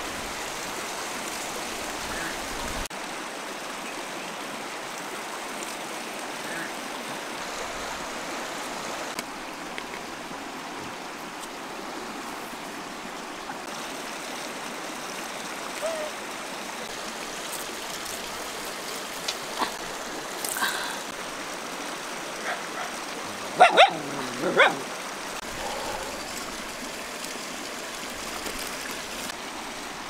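Steady rush of a shallow river running over stones. A dog barks a few times about three-quarters of the way through, the loudest sounds here.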